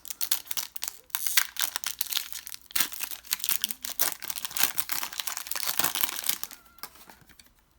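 Foil Pokémon TCG booster pack wrapper crinkling and tearing as it is opened by hand. The dense crackle fades out over the last second.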